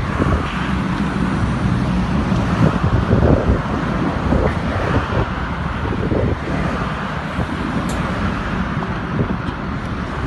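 Heavy crane truck's diesel engine running steadily to drive the crane's hydraulics during a lift, with wind buffeting the microphone.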